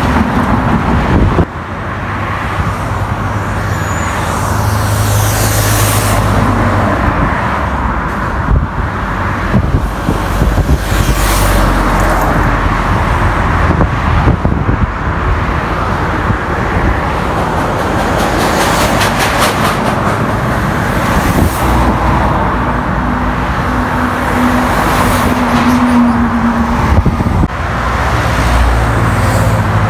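Highway traffic passing at speed: the steady rush of tyres, with the low engine drone of heavy trucks swelling and fading as they go by. The sound drops suddenly about a second and a half in.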